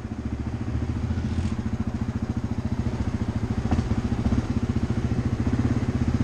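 ATV engine running steadily at trail speed, a fast even pulsing, heard from the rider's seat.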